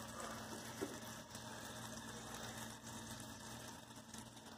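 Faint, steady sizzle of grease bubbling on the hot surface of a Blackstone E-series electric griddle, with a low steady hum underneath.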